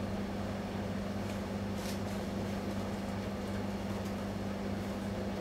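A steady low hum of room background noise, with no speech.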